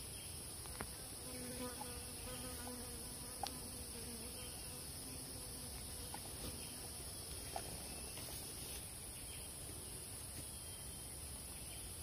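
Steady high-pitched drone of tropical forest insects, with a few faint ticks and rustles of hands working soil and twigs while a snare is set.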